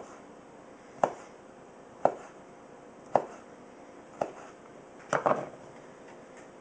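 Fixed-blade knife slicing down through sausage and knocking onto a cutting board with each cut, about once a second, with a quick double knock near the end.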